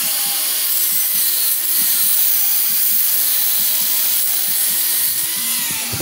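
Electric angle grinder with a wire wheel worked against a small steel piece, giving a loud, steady hiss over the motor's whine. About five seconds in the whine starts to fall as the grinder is lifted off and winds down.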